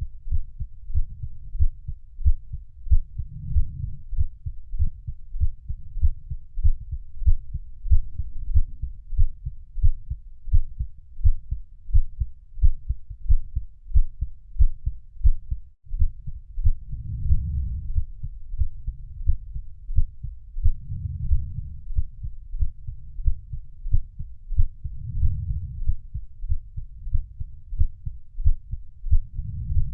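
Heartbeat thumping in a steady, even rhythm, low and muffled, with a brief break about halfway through.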